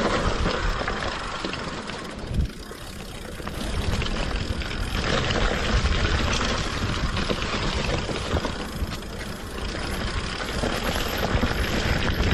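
Mountain bike descending a dirt trail: wind rushing over the camera microphone and tyre rumble on dirt and dry leaves, with the bike rattling over bumps. It eases off briefly about two seconds in, then picks up again.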